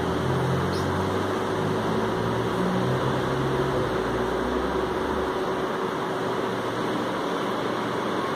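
Steady whirring hiss with a thin constant hum, the noise of an electric motor such as a fan running; a deeper low drone underneath fades out about five seconds in.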